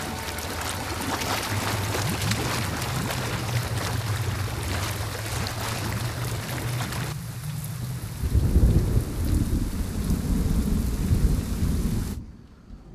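Heavy rain pouring and splashing on pavement and a street drain grate, with a low steady hum underneath. About seven seconds in the rain hiss thins and a deep rumble of thunder rolls for about four seconds, then the sound cuts off suddenly just before the end.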